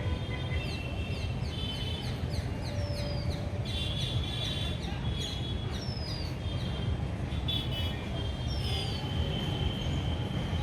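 Birds chirping, many short falling chirps repeating throughout, over a steady low rumble of background noise.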